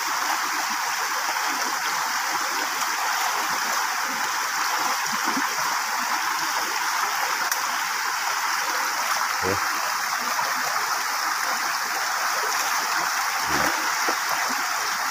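Steady rushing of a fast, muddy stream swollen by heavy rain, running over its bed. Two brief low thumps come about two-thirds of the way through and near the end.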